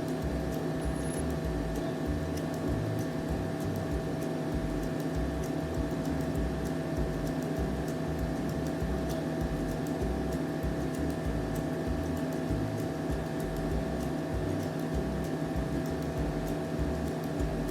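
Steady mechanical hum with a constant pitch, like a room appliance running, and a few faint ticks.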